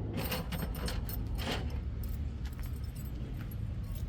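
Light clicks and rattles of spark plug wires being handled and laid out, their end terminals and boots tapping together, over a steady low hum.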